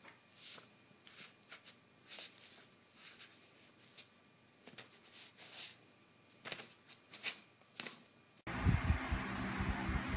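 Sheets of printer paper rustling and crinkling in short, irregular scratches as a kitten paws at them. About eight and a half seconds in the sound switches abruptly to a louder steady noise with low thumps.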